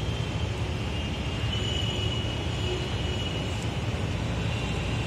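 Steady low background rumble with a faint high whine above it; no distinct sound from the forceps or the heart.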